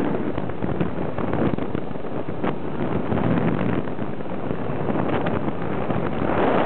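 A Trabant driving uphill, its engine running steadily under heavy wind noise buffeting the microphone.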